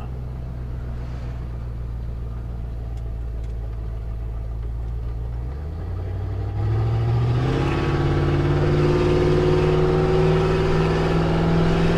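Carbureted 351 Windsor V8 in a 1991 Ford F250 running steadily at low speed. About halfway through the driver accelerates: the engine pitch climbs and grows louder, then holds steady at higher revs.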